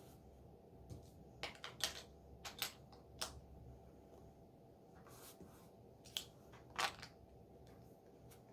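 Plastic Lego bricks being handled and pressed together, giving scattered sharp clicks and light clatter, about nine in all and loudest near the start and near the end.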